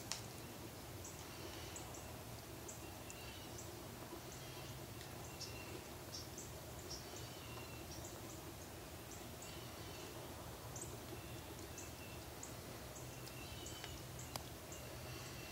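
Faint outdoor ambience: short high chirps from distant small birds scattered throughout, over a steady low hum, with one sharp click near the end.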